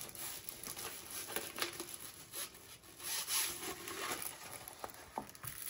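Faint rubbing and rustling of a rolled diamond painting canvas being handled and rolled backwards to flatten its curl, a little louder for a second or so midway.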